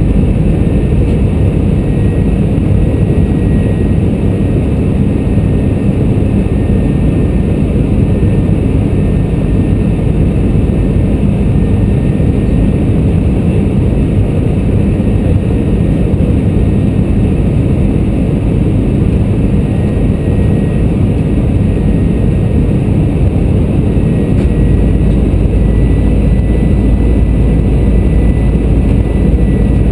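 Steady, loud cabin noise of an Airbus A320 on approach: airflow and the CFM56 engines running, with a faint steady whistle above it. About three-quarters of the way through, the deep rumble grows stronger.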